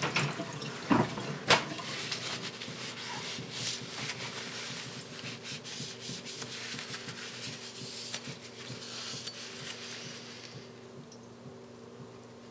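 Two light knocks about a second in, then faint handling and rubbing noise with small ticks over a low steady hum, dying away near the end.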